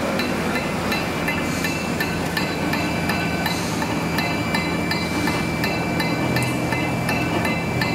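PP straw extrusion line running: a steady machine hum with rapid, regular clicking, several clicks a second, and a faint hiss about every two seconds.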